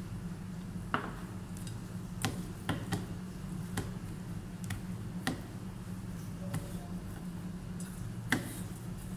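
Hands kneading powdered-sugar dough in a steel plate: irregular light clicks and taps against the steel, the sharpest about a second in and near the end, over a steady low hum.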